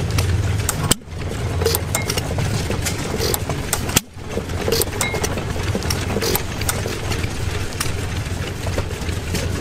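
Small antique stationary gas engine running: a steady low drone with an irregular scatter of sharp clicks and pops.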